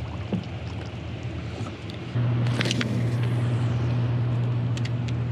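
Steady low hum of a dam's hydroelectric generators. It dips briefly and comes back louder about two seconds in. A few light clicks of fishing rod and tackle being handled come in the second half.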